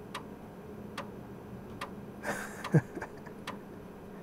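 3.5-inch floppy disk drive loading video data off the disk: its head steps with sharp ticks about once a second. A brief low thump comes about two-thirds through.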